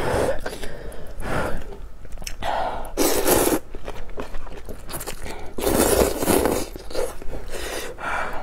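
A person slurping rice noodles from a bowl of soupy luosifen and chewing them, in several separate noisy slurps.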